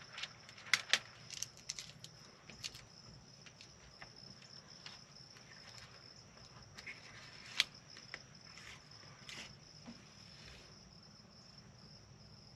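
Crickets trilling steadily as one high, even tone, with scattered short crackles and squeaks from wet window tint film being handled and pressed onto the glass, the sharpest about a second in and again past halfway.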